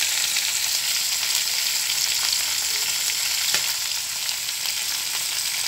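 Crabs and mayonnaise sizzling steadily in a hot pot, with a few faint ticks and pops.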